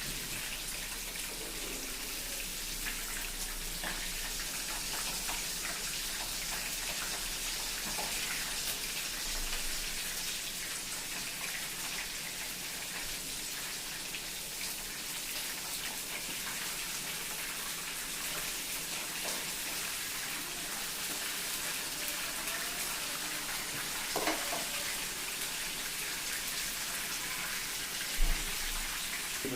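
Flour-coated chicken drumsticks deep-frying in hot oil: a steady, dense crackling sizzle.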